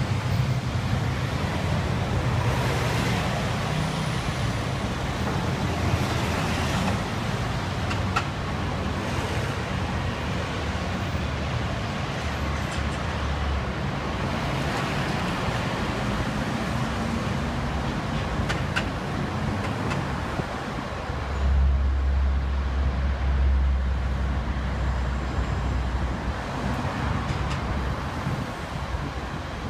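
Slow city street traffic: car, van and bus engines running and moving off. A low engine rumble swells for a few seconds about three-quarters of the way in.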